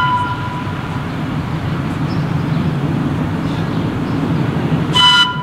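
Battery-electric locomotive of a 15-inch-gauge park railway running with its train of coaches, a steady low rumble under its horn. The end of one horn blast is heard just at the start, and a short blast comes about five seconds in.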